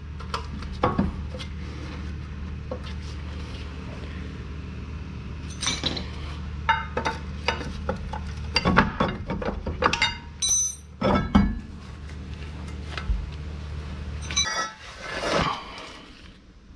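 Irregular metallic clinks and clanks of hand tools and brake parts being handled, over a steady low hum that cuts off about fourteen seconds in.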